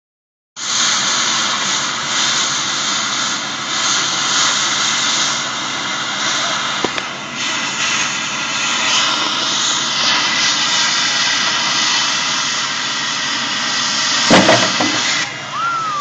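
Large cutting torch blasting a steady jet of gas as it burns through steel, a loud even hiss. Near the end there are two sharp pops, and then the hiss cuts off suddenly.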